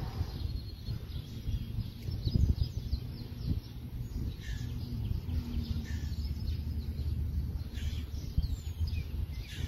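Songbirds chirping and trilling in short calls over a steady low background rumble.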